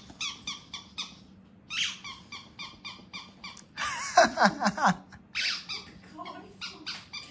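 Squeaky ball toy squeaking in quick runs of short, high squeaks, about four a second, as an Asian small-clawed otter bites it. The squeak sounds much like an otter's own call. About four seconds in a person laughs briefly and loudly.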